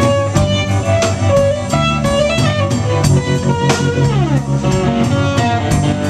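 Live rock 'n' roll band playing an instrumental passage: an electric guitar picks out a lead line of single notes over electric bass and a steady drum beat. About four seconds in, a note slides down in pitch.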